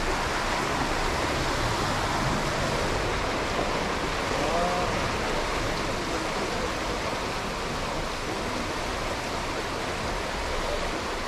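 Steady rush of stream water pouring down stepped concrete cascades in a channel, an even hiss that holds through. A brief faint voice passes about four and a half seconds in.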